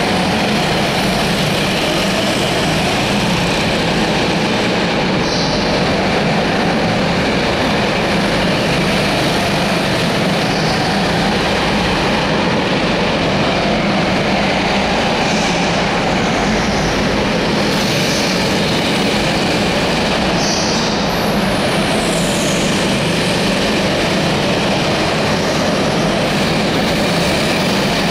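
Several go-kart engines running as karts lap an indoor track, a steady loud drone with a few brief high squeals scattered through it.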